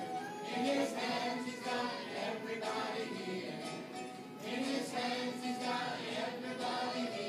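A small group of young girls singing a Sunday school song together.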